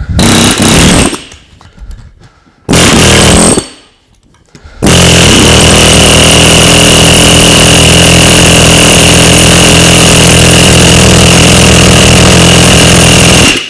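Chief pneumatic air hammer with a chisel bit hammering on rebar clamped in a steel bench vise. It comes as two short bursts, then one long, very loud run of about nine seconds that cuts off just before the end.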